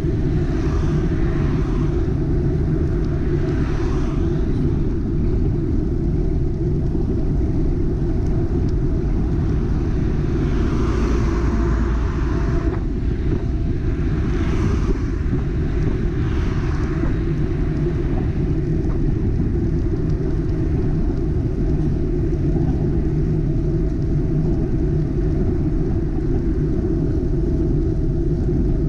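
Steady low wind rumble on a bicycle-mounted action camera's microphone while riding, with several cars overtaking close by, their tyres hissing as each swells up and passes, most of them in the first two thirds.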